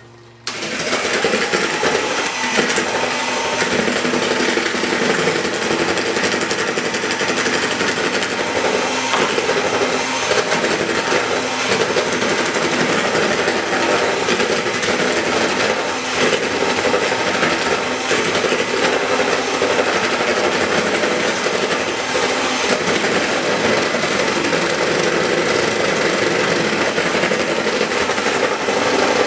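Electric hand mixer with twin beaters running steadily, whisking cake batter in a plastic bowl; it switches on about half a second in.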